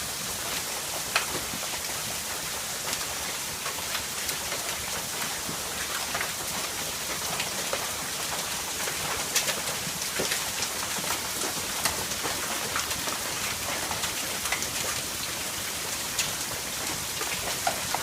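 Hail storm: a dense steady hiss of hailstones and rain pelting the garden, with many sharp separate ticks of stones striking hard surfaces.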